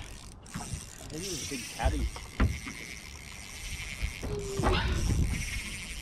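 Spinning reel being cranked to retrieve a lure, its gears and roller giving a fine whirring rattle that comes and goes in spells.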